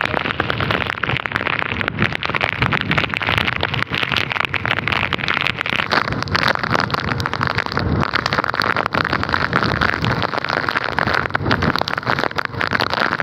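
Steady rush of wind over the microphone, crackling with rain hitting it, from riding a motorbike through heavy rain.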